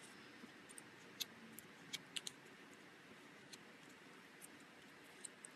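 Near silence with faint, scattered small clicks and crackles of a cardstock petal being handled and rubbed with a bone folder to soften its fibres.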